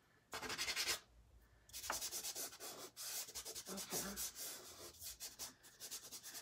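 Black soft pastel scraping back and forth on pastel paper: a short scratchy burst, then from about two seconds in a long run of rapid short strokes.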